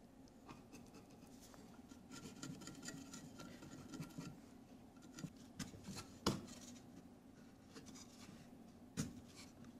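Faint scraping and rubbing of a small glue applicator working glue into the joints of a wooden drawer box. Later come two light, sharp knocks as the wooden pieces are fitted together.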